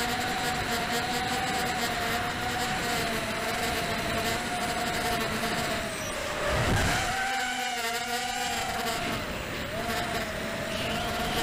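Brushless motors and propellers of a ZMR FPV quadcopter whining in flight, heard from its onboard camera with wind rush. The pitch wavers with throttle, dips with a burst of low rumble about two-thirds of the way in, then warbles briefly before it steadies again.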